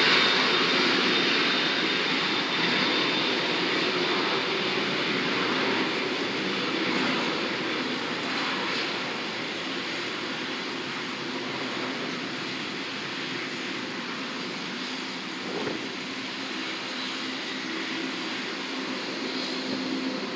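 Aircraft engines passing and receding, a faint high whine over a broad engine noise that fades over about ten seconds into a steady distant rumble.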